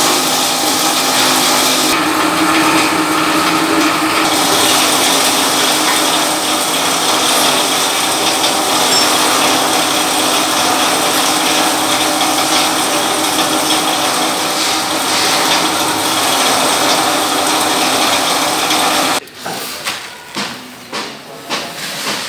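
Electric pharmaceutical-waste grinder running loud and steady while material fed into its hopper is cut up. About nineteen seconds in the noise cuts off abruptly, and a few short scraping, pouring sounds follow as the ground granules slide out of the machine into a basin.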